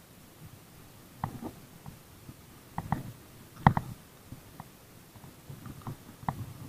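Irregular clicks and soft knocks from a spinning rod and reel being handled while a fish is brought in, the loudest about three and a half seconds in.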